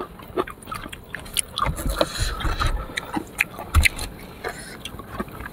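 Close-up eating of sour fruit: irregular biting and chewing, with short wet clicks and crunches and a few soft low knocks.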